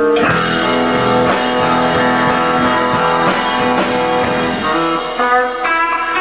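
Instrumental band playing live: electric guitar, pedal steel guitar, bass and drums, with a steady beat under long held melody notes. Near the end a new run of notes steps upward.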